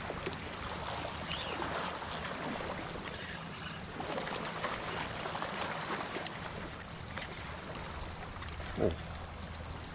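Insects chirring in a steady high-pitched drone, over faint splashing and rustling while a hooked fish is played on a bent rod.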